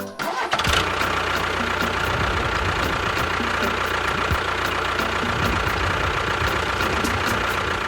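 A small engine or motor running steadily with a high steady whine. It starts about half a second in and cuts off abruptly at the end.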